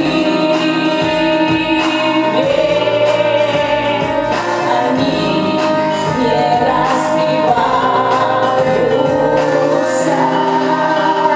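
A woman singing a melodic song over a musical backing track, holding long, sustained notes.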